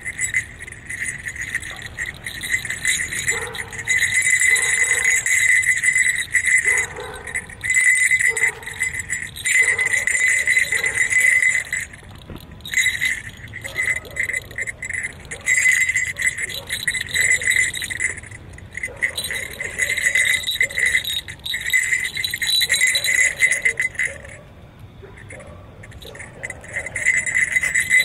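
Small metal jingle bells on the horns of a jester mask, jingling in repeated bursts as they are shaken, with a short lull about 24 seconds in.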